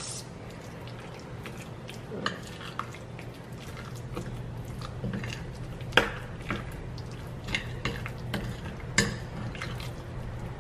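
A metal spoon stirring jackfruit pieces through a thick flour-and-water batter in a ceramic bowl: a soft wet scraping, with sharp clinks of the spoon against the bowl now and then. A steady low hum runs underneath.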